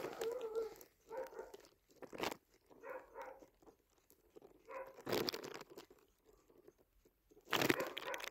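Torx socket clicking and scraping on the screws of a diesel injection pump body as it is fitted and turned by hand, with several short crunching bursts, the loudest about five seconds in and near the end.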